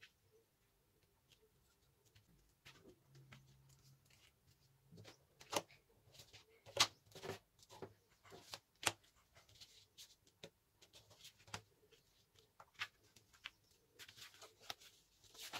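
Paper being folded and creased by hand, with a ruler pressed along the fold: quiet rustling with scattered short crackles and clicks, the sharpest ones in the middle.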